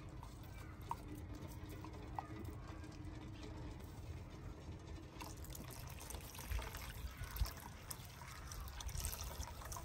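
Milk poured from a clay bowl into a steel saucepan of tea, a steady splashing pour that starts about five seconds in and runs until near the end.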